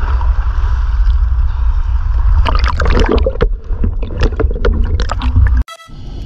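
Sea water sloshing and gurgling against a camera at the surface, turning to a dense crackle of bubbles and splashing as a scuba diver goes under. It cuts off suddenly near the end and music begins.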